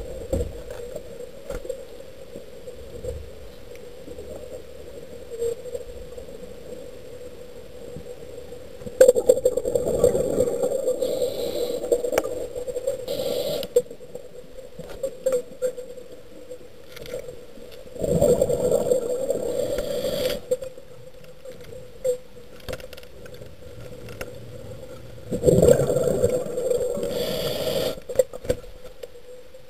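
A diver's breathing heard underwater through a camera housing: three long rushing breaths several seconds apart, over a steady low hum.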